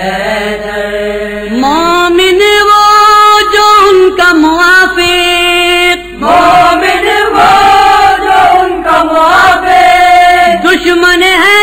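Voices chanting a Shia noha (lament) in long held notes that slide between pitches, phrase after phrase, with a short break about six seconds in.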